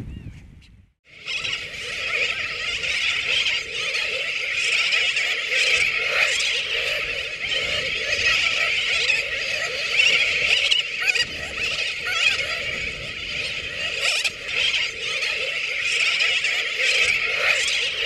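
Din of a dense nesting colony of terns: many birds calling over one another without a break, starting abruptly about a second in.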